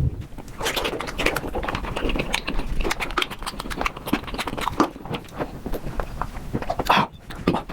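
Close-miked chewing and crunching of bamboo shoot, played back at five times speed, so the bites and chews come as a dense, rapid run of crisp clicks. There is a short pause just after seven seconds in.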